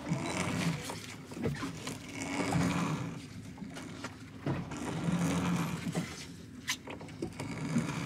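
Crab pot line being hauled up by hand over the side of a small boat: a rubbing swish with each pull, coming in swells every couple of seconds, with a few knocks and one sharp click near the end.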